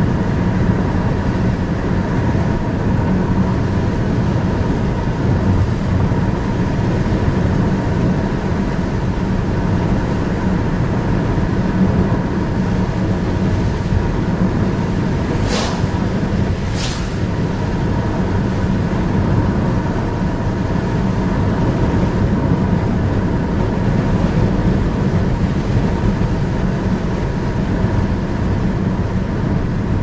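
Steady road and engine noise heard from inside a moving car, tyres running on wet pavement. Two brief sharp clicks a little past halfway.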